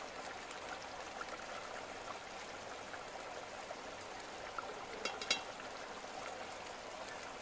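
A pot of chickpea curry gravy simmering on a gas stove, bubbling and gurgling steadily, with a couple of light clicks about five seconds in.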